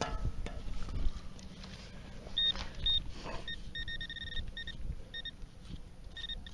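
Metal detector beeping on a buried target: short high electronic beeps, some single and some in quick strings, starting a couple of seconds in. Wind rumbles on the microphone underneath.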